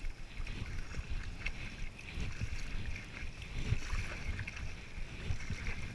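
Stand-up paddle strokes pulling through lake water, with water splashing and lapping against a Red Paddle Co paddleboard. Irregular low thuds run under a steady hiss of water.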